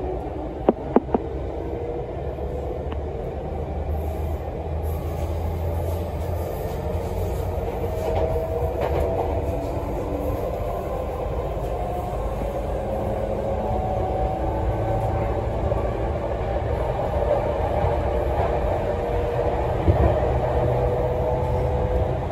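E231 series electric train heard from inside the passenger car as it pulls away from a station: a motor whine climbs slowly in pitch as the train gathers speed, over a steady running rumble. Two sharp clicks come about a second in.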